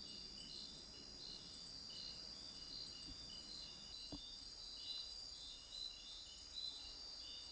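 Night-time rainforest insect chorus of calling crickets and katydids: steady high-pitched trilling, with a shorter chirp repeating about one and a half times a second beneath it. These are males calling to attract females.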